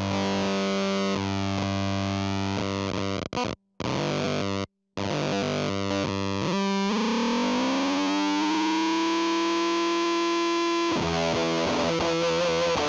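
Electric guitar played through a Fuzz Factory fuzz pedal: thick, fuzzy riffing that cuts out abruptly to silence twice. A single fuzzed note then glides up in pitch and sustains for several seconds before the riffing starts again.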